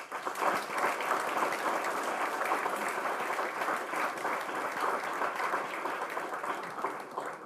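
Audience applauding in a lecture hall at the close of a talk, a dense steady clapping that dies away near the end.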